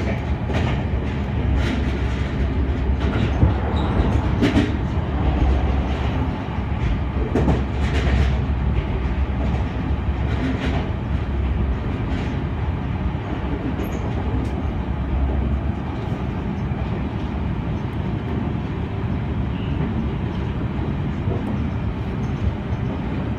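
Senboku Rapid Railway 7020 series electric train running at speed, heard from inside the front cab: a steady rumble with the wheels clicking over points and rail joints, the clicks most frequent in the first half. A low hum under the rumble stops about two-thirds of the way through.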